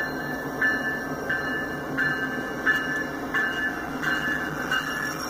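Railroad crossing bell dinging steadily, about three strokes every two seconds, over the low rumble of an approaching train that fills out in the last second or so.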